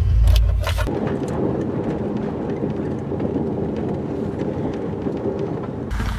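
Keys jingling at the ignition over a loud low rumble in the first second, then the steady rumble of road noise inside the cabin of a car driving on a gravel road. Near the end the sound changes to the car heard from outside, coming along the gravel.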